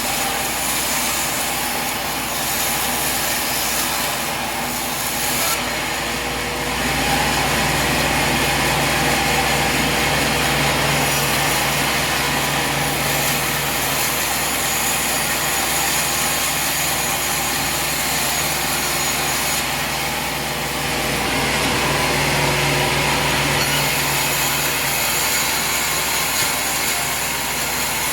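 Sawmill running with its saw blade cutting through a log: a steady mechanical drone overlaid by the rasp of the cut. It grows louder about six seconds in, eases off briefly past the middle, then picks up again as the cut continues.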